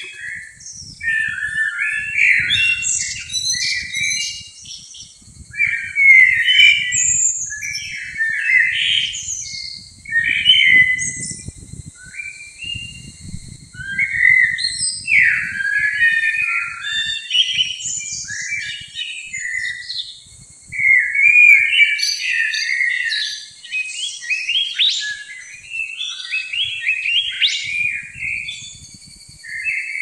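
Songbirds singing in a dense chorus of overlapping chirps and whistled phrases, with no pause.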